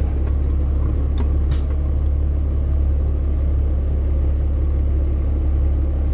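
Heavy diesel logging machinery running steadily, a deep constant engine drone, with a couple of short knocks about a second and a half in.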